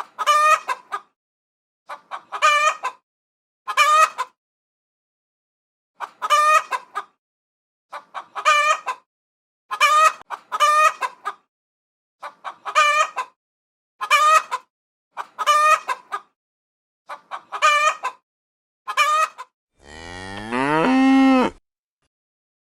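A chicken clucking in short bursts about every two seconds, then near the end a single long cow moo that falls in pitch.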